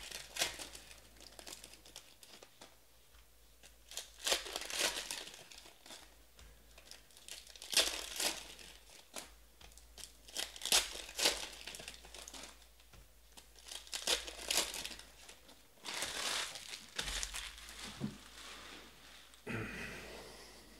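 Trading card pack wrappers being torn open and crinkled by hand, in short rustling bursts every few seconds.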